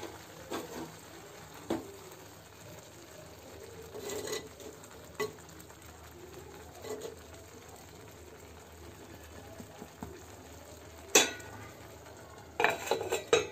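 A steel ladle stirring rice and urad dal boiling in a clay pot, with short scrapes and knocks against the pot now and then over a faint steady hiss from the boiling pot. The sharpest knock comes about 11 s in, with a few more near the end.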